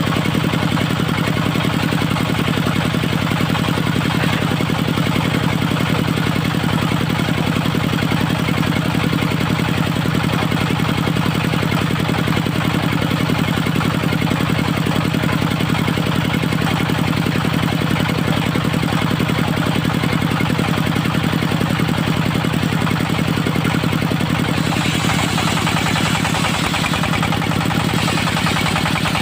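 Diesel engine of a portable circular sawmill running steadily. Near the end a higher, noisier sound joins in twice.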